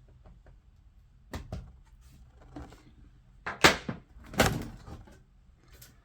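An Alienware M17 R4 laptop being handled on a hard surface: a few light clicks, then two loud knocks less than a second apart around the middle.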